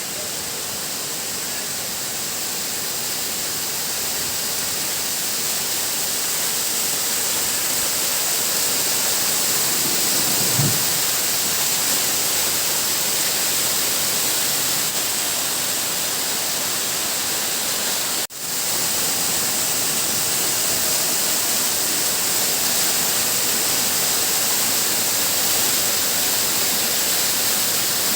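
Steady hissing noise with no clear source, briefly cutting out about 18 seconds in.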